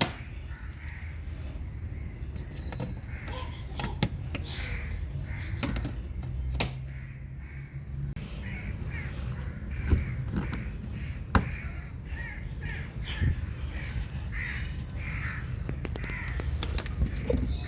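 Sharp clicks a few seconds apart, the fender liner's plastic push clips being pressed in until they lock, over a bird calling again and again and a steady low rumble.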